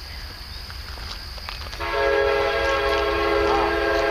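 Diesel locomotive's air horn sounding a steady multi-note chord, starting about two seconds in and still held at the end, as the train approaches.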